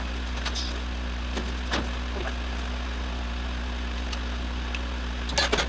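Steady low mechanical hum of shop equipment, such as a fan or compressor, with a few light clicks and knocks from parts being handled and a quick cluster of knocks near the end.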